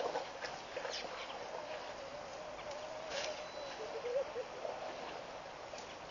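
Waterhole ambience: a steady outdoor hiss with a few sharp clicks and a wavering, warbling call that runs for about three seconds in the middle.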